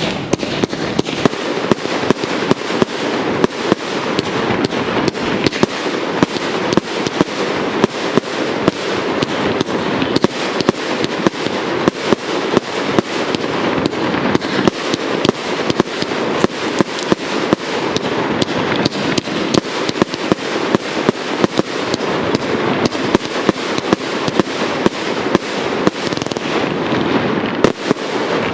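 Aerial fireworks display: a rapid, unbroken string of shell bursts and bangs, roughly two a second, over a constant crackle of burning effects.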